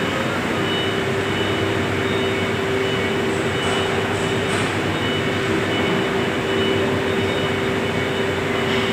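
Steady machinery hum with a constant mid-pitched tone over a rushing noise, typical of a CNC machine shop with machines running.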